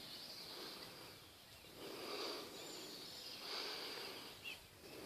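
Faint outdoor background noise that swells and fades a few times, with one small tick near the end; no barking.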